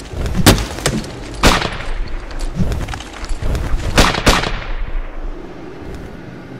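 Gunfire sound effects: loud sharp bangs, each with a short ringing tail, three within the first second and a half and two more about four seconds in, over a low rumble.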